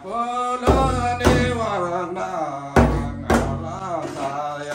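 A man singing a folk song while beating a damphu, the Tamang frame drum, by hand: deep drum strokes fall in pairs about half a second apart, one pair every two seconds or so, under his long held, wavering sung notes.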